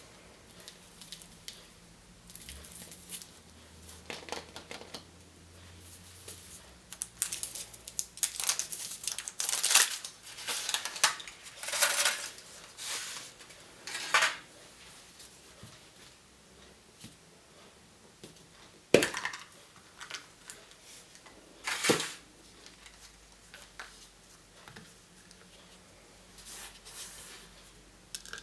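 Wrapping being handled and opened: irregular crinkling, tearing and crackling of wrapper, thickest in the middle, with two sharp clicks or snaps later on.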